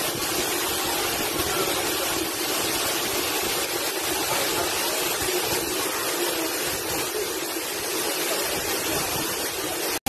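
Waterfall pouring steadily: an even, unbroken rush of falling water.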